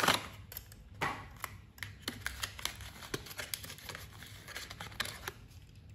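Small cardboard toy box being opened by hand, with scattered rustles, scrapes and light clicks as the flap is lifted and the cardboard insert holding a diecast truck slides out. The loudest handling noises come at the start and about a second in.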